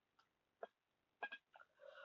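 Near silence, with a few faint short clicks and a faint soft sound near the end.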